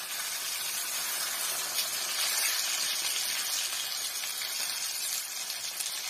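Whole tilapia shallow-frying in hot coconut oil with curry leaves: a steady sizzle that grows a little louder about two seconds in as a fish is turned over with a metal spatula.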